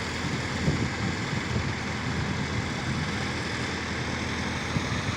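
Diesel engine of a hydra pick-and-carry crane running steadily, with a few brief knocks over it.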